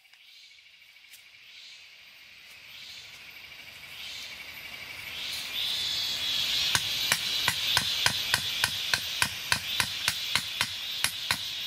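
A machete chopping at a wooden stake, short sharp strokes about three a second starting about two-thirds of the way in. A steady high insect buzz rises behind it.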